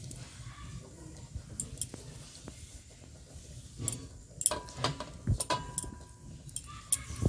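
Scattered light clicks and knocks of a knife cutting kneaded dough into portions on a board, busiest about four to five and a half seconds in, with a few short bird calls in the background.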